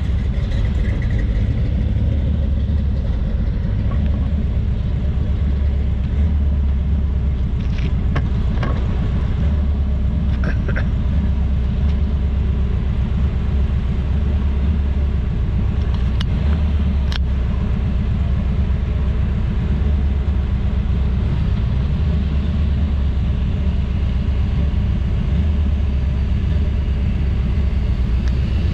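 Car engines running at low speed as show cars drive out of a parking lot: a steady low rumble, with a few light clicks about a third of the way in and again past the middle.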